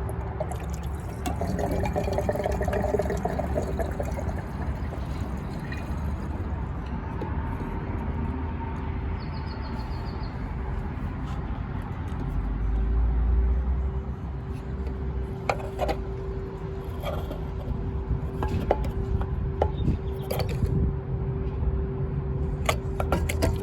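Liqui Moly gasoline system cleaner being poured from its bottle through a nozzle into a car's fuel filler, the liquid running steadily, over a steady hum. A few sharp clicks come in the second half.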